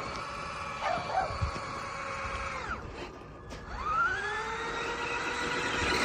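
RC truck's electric motor whining under throttle. It winds down to a stop almost three seconds in, then spins back up about a second later and runs steady. A short squeak sounds about a second in.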